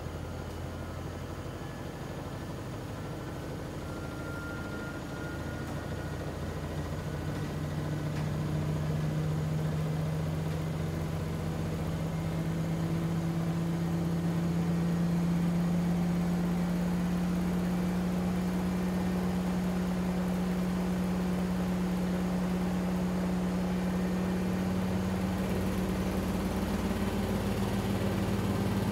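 Beko front-loading washing machine speeding up its drum for a spin. The motor hum rises in pitch and grows louder over the first half, holds at a steady whine, then climbs a little higher near the end.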